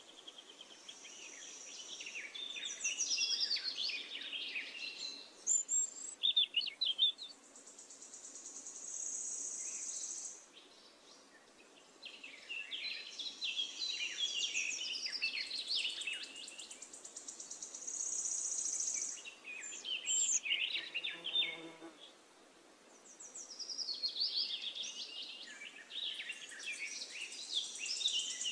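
Hot oil sizzling and crackling around potato fries deep-frying in a small pan, a busy hiss with many sharp pops that comes in stretches and dies down briefly twice.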